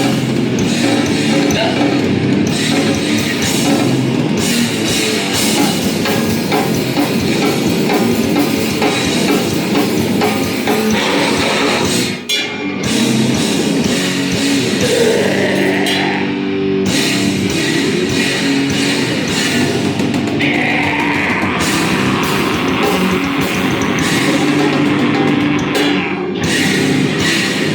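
Live heavy band playing loud guitar and drum kit. The music breaks off briefly about twelve seconds in, then comes back with a guitar sliding up in pitch into held notes before the full band resumes.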